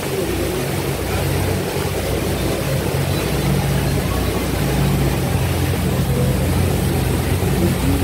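Motorboat engine running steadily at cruising speed, a low even drone, under the loud rush of the churning wake and spray.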